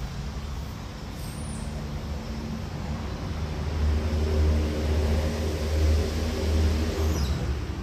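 A motor vehicle's engine running nearby, a low steady hum that grows louder a few seconds in, holds, and fades near the end.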